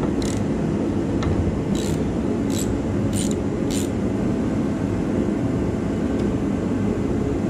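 Ratchet wrench clicking in about six short bursts during the first four seconds as bolts on a small engine's top assembly are worked loose. Under it runs a steady low mechanical hum.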